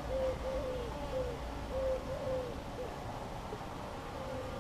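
Series of short tooting notes about a third of a second apart, with a low hum of honeybees underneath: a honeybee queen piping. The tooting fades out about three seconds in.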